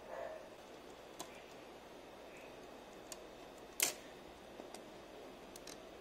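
Faint handling noise of small keyboard-build parts: a brief rustle at the start, then a handful of sharp, isolated clicks and taps of plastic and metal, the loudest a little under four seconds in.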